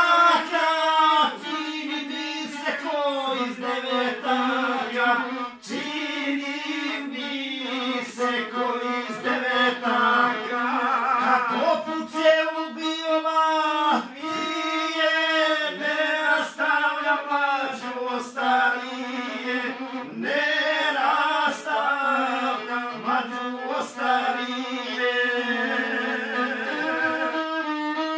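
A man singing a Bosnian folk song to violin accompaniment, his voice sliding between long held notes.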